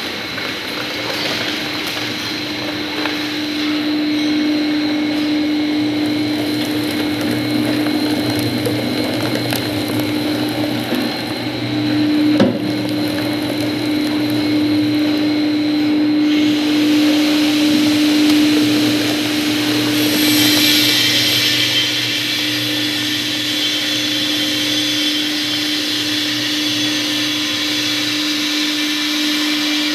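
Twin-shaft cardboard shredder driven by a 2 HP electric motor, running with a steady hum while its interlocking cutter blades chew corrugated cardboard into small pieces. A single sharp knock comes about twelve seconds in, and the sound turns hissier from about twenty seconds in.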